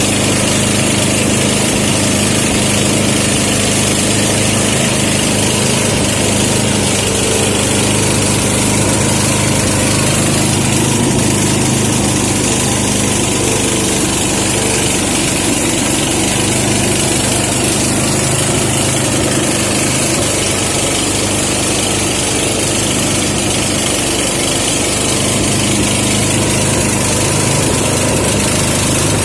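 Engine-driven rice thresher running steadily: a constant small-engine drone with a continuous hiss above it.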